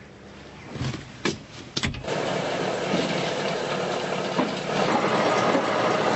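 A few knocks, then the diesel engine of a Chetra heavy bulldozer running loud and steady from about two seconds in, growing louder again near the end.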